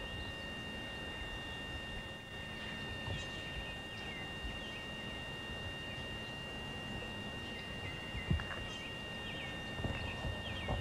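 Birds chirping in many short, falling calls over a low rumble and a steady high-pitched tone, with one sharp knock about eight seconds in.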